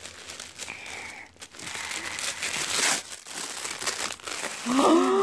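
Pink tissue-paper gift wrapping crinkling and rustling as it is pulled open by hand, with a voice starting near the end.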